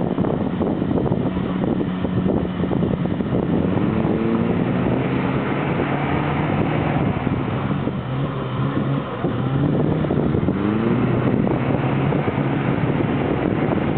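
Off-road 4x4's engine working hard, its pitch climbing in two revs about four and ten seconds in, with wind buffeting the microphone.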